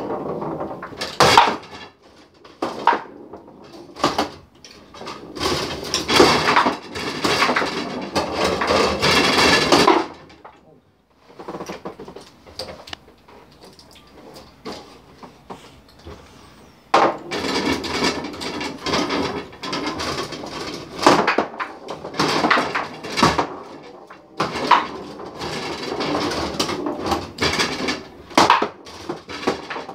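Foosball game in play: the ball and the plastic players knocking against the wooden table, and the metal rods clattering as they are slid and spun. The knocking comes in busy spells, with a quieter lull of several seconds in the middle.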